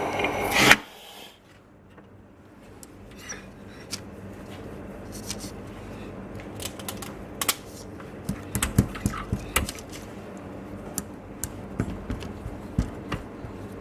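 Scattered light clicks and taps of small parts and a phone screen being handled on a workbench, with a brief loud rush of noise just under a second in.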